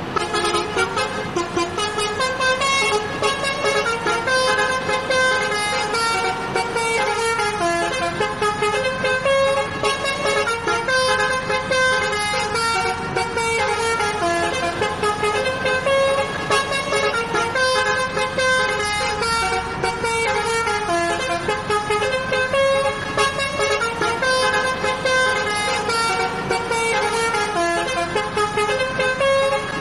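Bus telolet horn, a multi-trumpet air horn, playing a fast melody of short changing notes with several tones sounding together, without a break.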